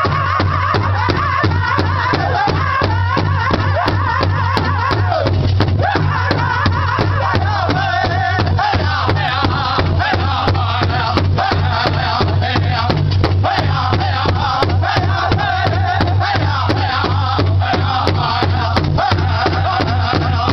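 Powwow drum group performing a contest song: several drummers strike one large drum in a steady beat while the singers chant together in loud, wavering voices.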